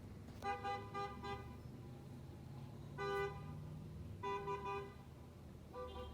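Car horns honking from a line of passing cars: a quick run of choppy toots, then two shorter honks, then steady honking starting near the end, over the low rumble of the cars' engines.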